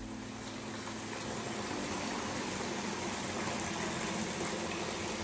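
A stream of water from a freestanding tub filler faucet splashing steadily into a bathtub as it fills.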